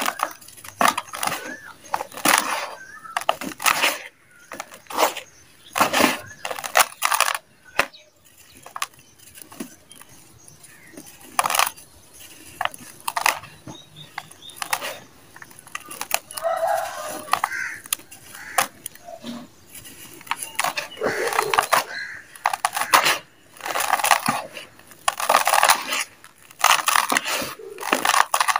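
Dry dirt chunks crushed and crumbled between the hands: gritty crunching, with crumbs and dust pouring back down into loose dirt, again and again in irregular strokes.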